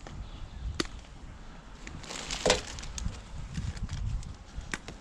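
Handling noise of rummaging through rubbish: scattered clicks and knocks, with a louder rustling crackle and a sharp crack about halfway through.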